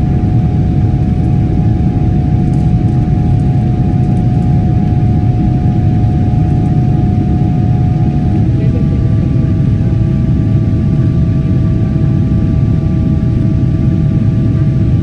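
Cabin noise from inside a Boeing 777-300ER in its climb after takeoff: a loud, steady rush of air and engine drone, with a steady whine whose tones change about eight seconds in.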